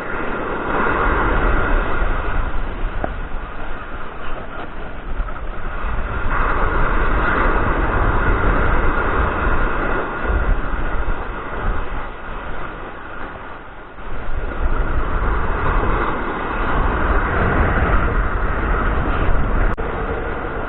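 Strong wind buffeting the microphone as a continuous rumbling rush that swells and eases, dropping off for a couple of seconds past the middle before picking up again.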